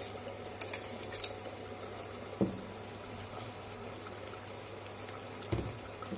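Mutton and masala simmering and bubbling in an open aluminium pressure cooker over the steady low hum of an induction cooktop. A few light clicks in the first second and two thumps, about two and a half and five and a half seconds in.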